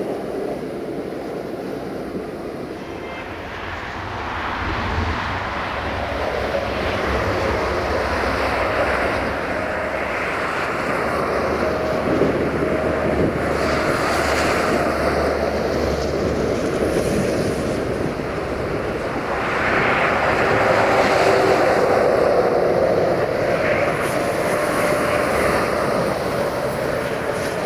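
Sulzer-engined 060-DA (LDE2100) diesel-electric locomotive working a freight train. Its engine drones steadily, with a low rumble and a high whistling tone over it, and it swells louder about two-thirds of the way through.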